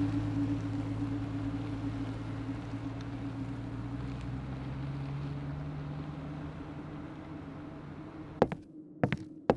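A vehicle engine runs steadily and slowly fades away. Near the end it gives way to a few sharp knocks or steps.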